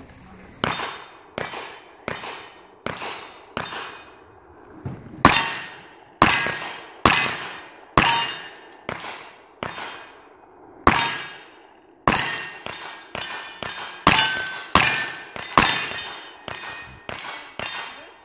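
A string of about two dozen gunshots at steel targets, each crack followed by the ringing clang of struck steel. The shots come about one a second at first, quicker near the end, with short pauses about four seconds in and again about eleven seconds in.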